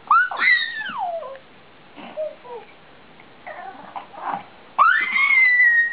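A baby's high-pitched squeals: a short one at the start that rises and then slides down, and a longer held squeal about five seconds in that slowly falls in pitch, with quieter babbling sounds between them.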